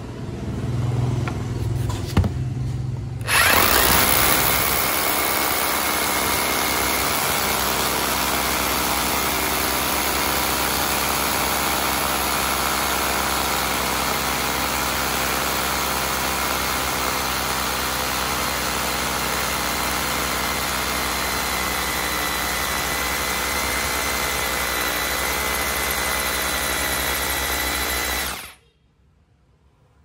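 A Makita DHR202 18V cordless rotary hammer and a corded 220V rotary hammer hammer-drilling together into a concrete block, the cordless one with a 12 mm bit and the corded one with a 10 mm bit. A quieter motor hum comes first, then about three seconds in the hammering starts loud and steady. It cuts off abruptly near the end.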